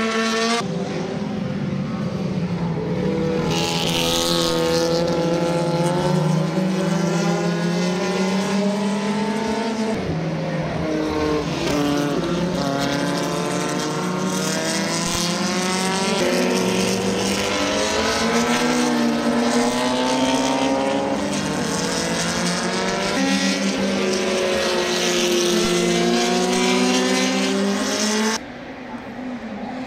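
Historic racing cars' engines running hard on track, several at once, their pitch rising and falling as they rev and change gear and pass by. The sound drops suddenly near the end.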